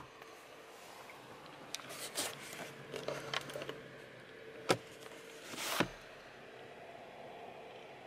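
Plastic trim in a car cabin being handled: a run of small clicks and rustles, then a sharp snap about four and a half seconds in and a brief rising swish that ends in a knock as the sun visor's lighted vanity mirror is shut and the visor swung up. A faint steady hum runs underneath.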